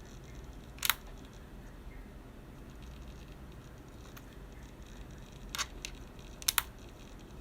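MacBook Pro charger plug being connected and handled: a sharp click about a second in, another click later, and a quick double click near the end.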